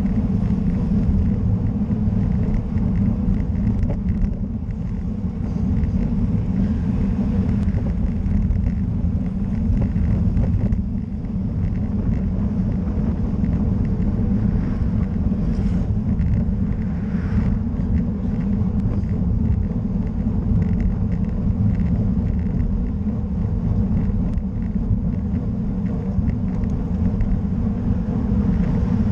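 Steady wind rush on the microphone of a camera mounted on a moving road bicycle, with low road and tyre rumble underneath.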